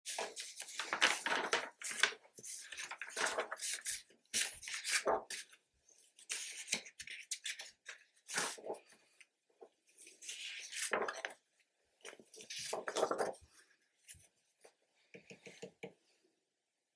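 Sheets of paper rustling and sliding as printed plans are handled and shuffled on a workbench, in irregular bursts with short pauses, tapering to a few light ticks near the end.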